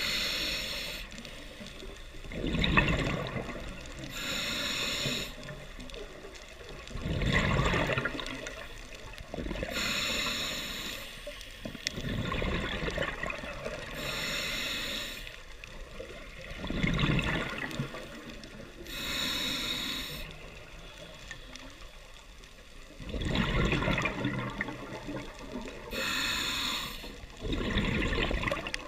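Scuba diver breathing through an open-circuit regulator underwater: a hissing inhale about every four to five seconds, each followed by a gurgling burst of exhaled bubbles.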